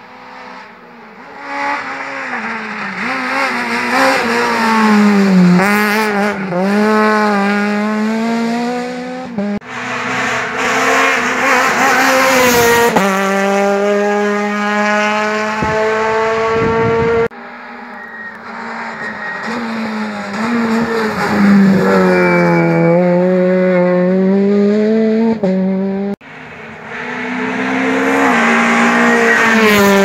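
Rally cars at full throttle passing one after another, engines revving hard with pitch climbing and dropping through gear changes and braking. The passes are joined by abrupt cuts.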